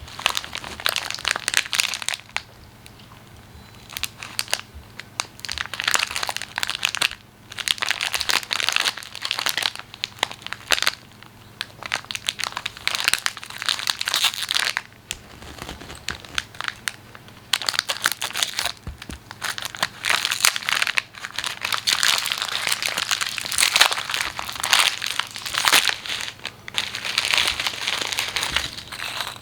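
Snack packaging crinkling and rustling as cookie packets are handled and unwrapped, in bouts of a few seconds with short pauses between.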